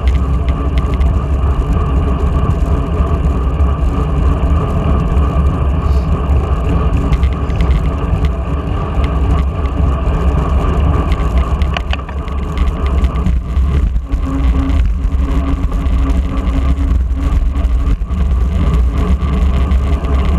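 Wind rushing over a bicycle-mounted camera's microphone at riding speed, with road and tyre rumble underneath; a loud, steady, deep rush.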